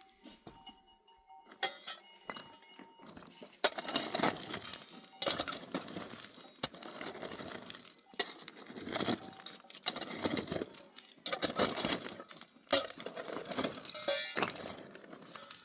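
Repeated clinking and scraping of hard objects, quiet for the first few seconds, then irregular strokes about once a second.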